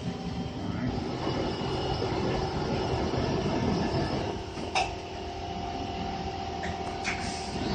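Mazak Nexus HCN-6000 II horizontal machining center running, a steady mechanical hum and whine. A sharp clack comes about five seconds in, after which a steady tone holds, and a lighter click follows a couple of seconds later.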